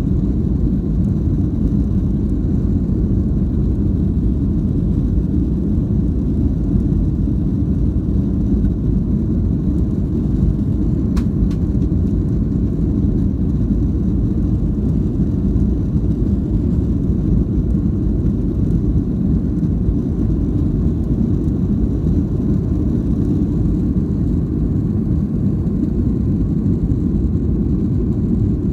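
Cabin noise of a jet airliner on its takeoff roll and climb-out: a loud, steady, deep rumble of the engines at takeoff power and the airframe, heard from inside the cabin, with one faint click about eleven seconds in.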